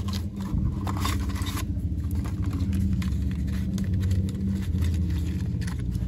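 Cardboard box of a diecast toy truck being opened and its inner tray slid out: scraping and rustling handling noises, thickest in the first second and a half, over a steady low rumble.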